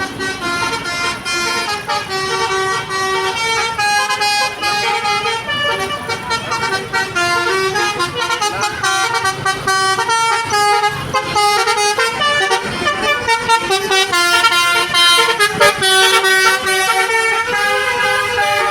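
Basuri multi-tone telolet bus horn playing a fast melody of stepped horn notes without a break.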